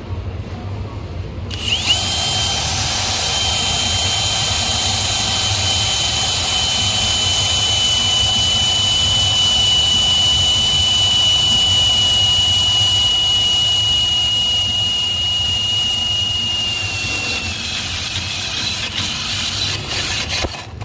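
Power drill driving a Matco HyperStep stepped drill bit through a cast iron Super Duty brake rotor under light pressure. About two seconds in, the cutting starts with a loud, steady high-pitched squeal over grinding noise. The squeal dips slightly in pitch near the end and stops shortly before the end.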